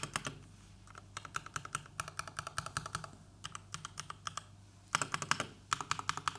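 Typing on a Keychron K6 wireless mechanical keyboard fitted with Cherry MX Red linear switches: quick runs of light keystroke clacks, with short pauses between the runs.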